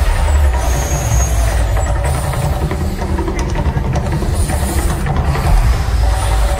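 Mirage volcano show erupting: a loud, steady deep rumble, with the gas fire jets bursting into flame.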